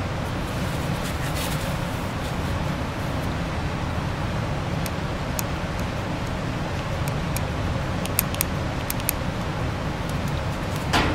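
Steady low noise of a shop heater running. A few light clicks come in the second half from small metal injection-pump parts being handled, with a slightly louder one near the end.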